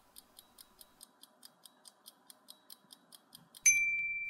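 Quiz countdown timer sound effect: a clock ticking about four times a second. Near the end a loud electronic beep sounds as the time runs out.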